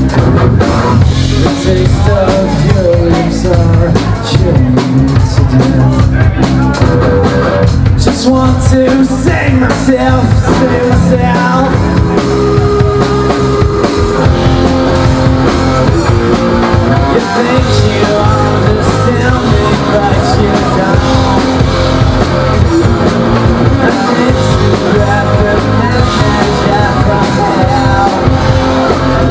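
Grunge rock band playing live: electric guitar, bass guitar and drum kit with a strong steady beat, and a vocalist singing over them.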